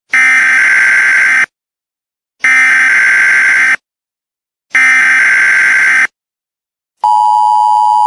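Emergency Alert System SAME header: three bursts of harsh digital data tones, each about a second and a half long with a second of silence between. About seven seconds in, the steady two-tone EAS attention signal begins.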